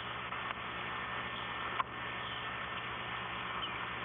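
Steady hiss with a low hum, broken by a faint click about half a second in and a sharper, louder click just before the middle.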